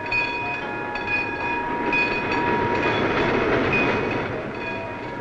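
Steam-hauled passenger train passing over a level crossing, its running noise swelling to the loudest point in the middle. Under it the crossing's warning signal sounds a repeating high ringing tone, pulsing about twice a second, as the optical and acoustic warning is active.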